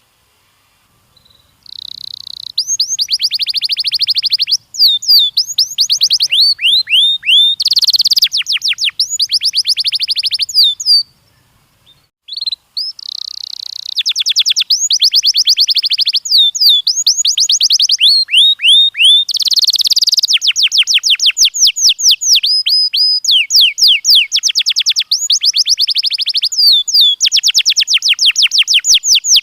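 Domestic canary singing: long, loud song phrases of rapid trills and fast repeated sweeping notes, starting a second or two in, breaking off briefly around the middle, then running on.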